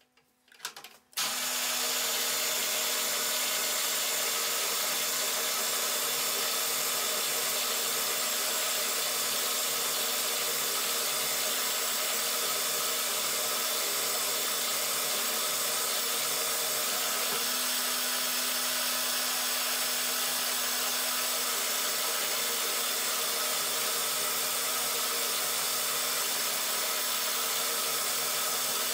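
Milling machine spindle starts about a second in and then runs steadily while a small drill bit bores into an aluminium block, drilling tapping holes for M3 threads.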